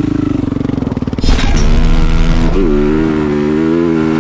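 Dirt bike engine ticking over, then about a second in the throttle snaps open and the bike pulls away, the engine running at a steady higher pitch with a brief dip and rise partway through.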